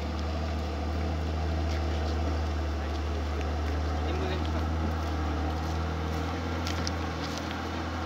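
Bus engine running with a steady low drone as the bus drives slowly through shallow river water.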